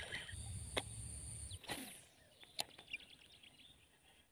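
Faint outdoor field ambience. A low rumble and a steady high drone run for the first second and a half, a single swish comes about two seconds in, then soft rapid ticking and chirps.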